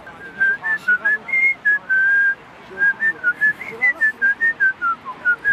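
A person whistling a tune close by: a quick run of short notes stepping up and down, with one longer held note about two seconds in.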